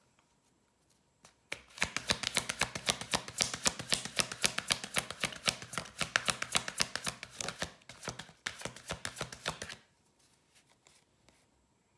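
Deck of cards being shuffled by hand: a quick run of sharp card clicks, about five a second, starting about a second and a half in and stopping near the end.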